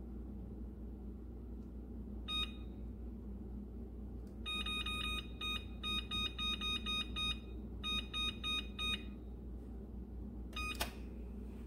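Electric range's oven control panel beeping at each key press: one short beep about two seconds in, then a quick run of short beeps for several seconds as the timer is stepped up to 15 minutes, and a last beep with a sharp click near the end. A steady low hum runs underneath.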